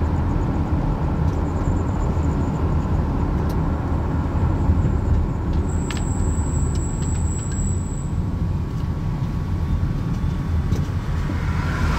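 Steady road and engine rumble heard from inside a car's cabin as it drives along a town street. A thin, faint high whine comes in about six seconds in and lasts a couple of seconds.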